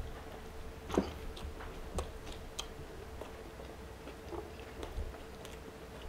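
A person biting into and chewing a mouthful of chili cheeseburger, close to the microphone. Small scattered mouth clicks come through, the sharpest about a second in, over a faint steady hum.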